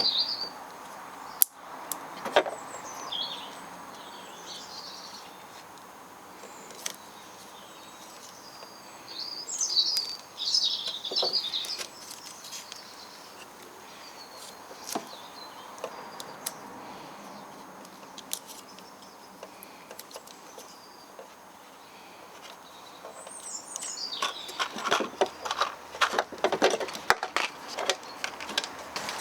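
Small birds chirping in short high twittering bouts, with scattered sharp clicks and knocks and a quick run of clattering knocks near the end.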